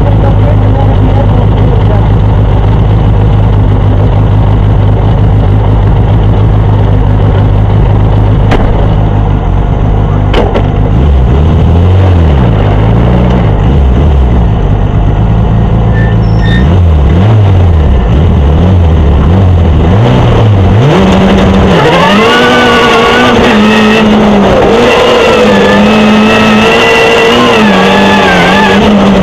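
Engine of a Ford Fiesta rallycross car, very loud inside the cabin. It runs steadily for about the first ten seconds, then revs up and down over and over, and for the last third it holds at high revs with a wavering pitch.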